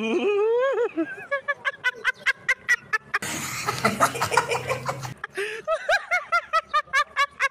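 Hearty laughter in quick, rhythmic 'ha-ha' pulses of about five a second, a woman's and a man's laughing in turn.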